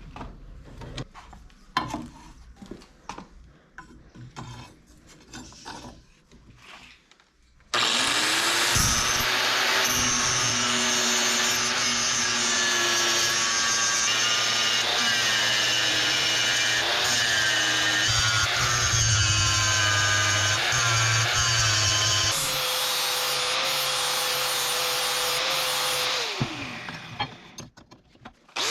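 Light clicks and scrapes of handling, then an electric power tool switches on abruptly and spins up, running loudly with its pitch dipping and wavering as work is pressed against it. Its pitch settles higher for a few seconds, then it switches off and winds down with a falling pitch near the end.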